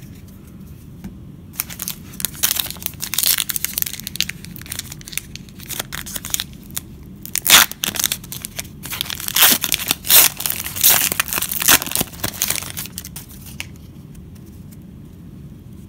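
Wrapper of a trading-card pack being torn open at its crimped end and crinkled as it is peeled off the cards, a run of crackling rips that starts a second or two in, is loudest about halfway through and again toward the end, then dies away.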